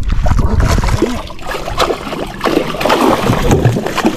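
Water splashing and churning against a boat's hull as a hooked barracuda thrashes at the surface alongside. Wind rumbles on the microphone in the first second.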